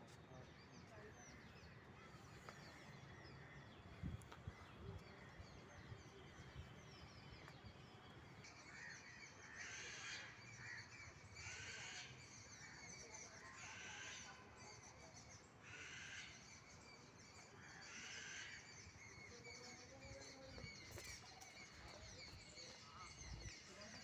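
Near silence with faint bird chirps; in the middle come five faint harsh, raspy sounds about two seconds apart.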